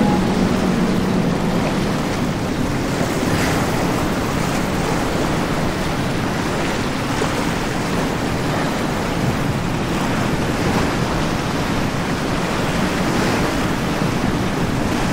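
Rough inlet water surging and breaking around a powerboat's hull, with steady wind noise on the microphone. A boat engine's drone fades away in the first second or two.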